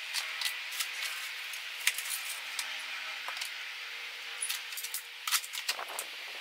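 Hand tools and plastic organizers being handled and set down on a plastic shelf: scattered light clicks and clinks, with a busier cluster about five seconds in.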